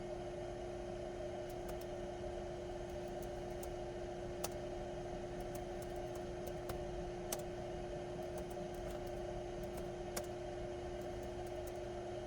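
Steady machine hum holding one constant tone, with scattered single keyboard key clicks at irregular intervals, a few of them louder.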